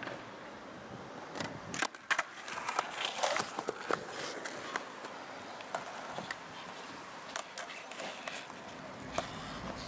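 Skateboard wheels rolling on the concrete of a skate bowl. A dense run of sharp clacks and knocks from the board comes from about one and a half to four seconds in, then scattered clicks.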